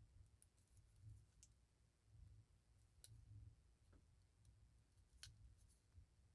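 Near silence with a few faint, sharp clicks and taps as hands handle a steel watch case and its rubber end-link strap, over a low room rumble.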